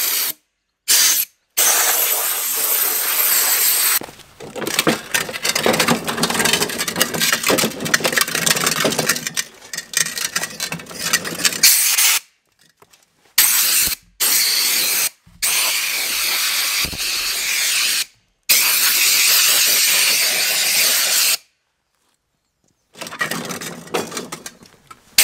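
Water from a garden hose spray nozzle hissing and splashing onto a cylinder mower's reel and housing, rinsing off the lapping paste, in several stretches that cut off abruptly.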